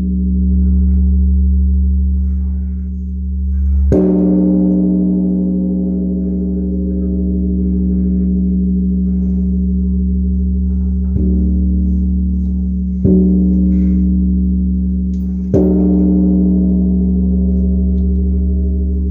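Large bronze Korean Buddhist temple bell (beomjong) ringing with a deep, long-sustaining hum. It is struck four times, about 4, 11, 13 and 15 seconds in, and each strike renews the ringing.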